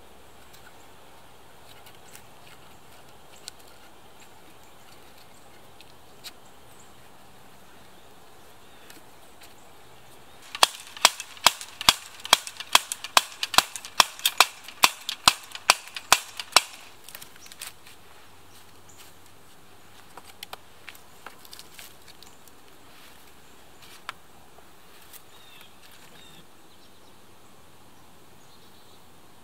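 A run of about fifteen sharp wooden knocks, evenly spaced at about two and a half a second, lasting some six seconds: sticks being knocked into place on a stick lattice door. A few faint ticks and rustles follow.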